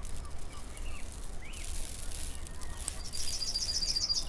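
Birds chirping and calling, with a fast run of high repeated notes near the end, over a steady low hum.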